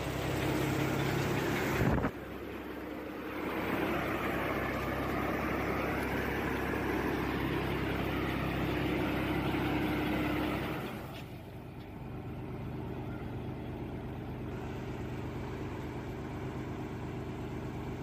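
A tractor engine runs steadily, driving a mounted air-blast sprayer whose fan blows a rushing stream of air and spray. The sound shifts abruptly about two seconds in and again about eleven seconds in, with a fuller rush of air in between and a quieter engine hum near the end.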